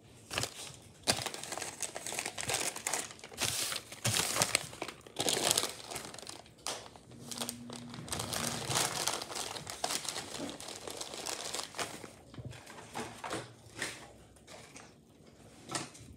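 Plastic MRE ration packaging crinkling and crumpling as it is handled, in irregular bursts that thin out near the end.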